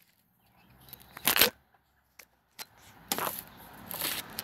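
Handling noise of a phone being propped against a wrench: a sharp knock about a second and a half in, a few light clicks, then rubbing and rustling on the microphone near the end.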